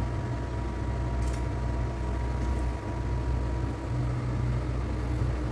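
Steady low electrical or mechanical hum with a faint, thin steady tone above it and a few faint ticks.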